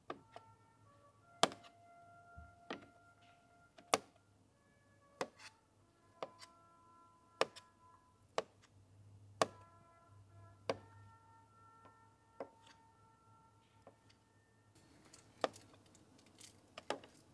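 Knife cutting meat against a metal camp bowl: a sharp tap on the bowl about once a second, each followed by a brief ringing.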